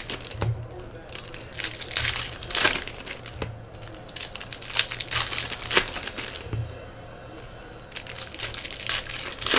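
Foil wrappers of Topps Chrome baseball card packs crinkling as they are torn open and handled, in quick irregular crackles with a quieter moment about two-thirds of the way through.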